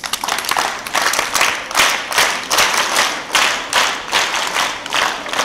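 Many hands clapping together in a steady rhythm, about two claps a second.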